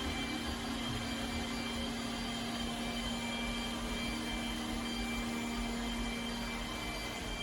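iRobot Roomba j7+ robot vacuum running: a steady motor whir with a low hum and a faint high whine.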